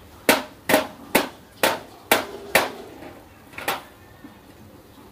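Sharp knocks on the bare metal frame of a disassembled HP LaserJet Pro MFP M26a laser printer as it is handled: six at about two a second, then one more about a second later.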